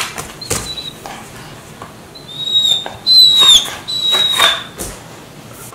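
Dog whining with a slipper in its mouth: four thin, high-pitched whistle-like whines, the third falling away at its end, with a few soft knocks in between. This is the whining it makes to wake its owner in the morning.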